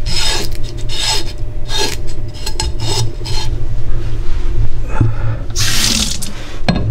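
Deba knife tip scraping along the skin of a whole chub mackerel in repeated short strokes, clearing the slime and fine scales from its surface. About five and a half seconds in, a short run of tap water over the blade as it is rinsed.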